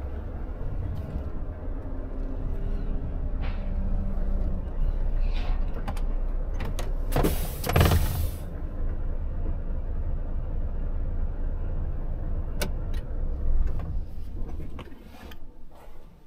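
Volvo FH truck engine running with a steady low rumble heard from inside the cab, with a brief loud hiss about halfway through and a couple of sharp clicks later; the engine sound falls away near the end.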